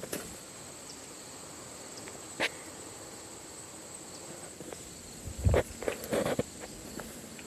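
Footsteps and handling noise: a single sharp knock about a third of the way in, then a cluster of crunching, thudding steps a little past halfway, over a steady high hiss.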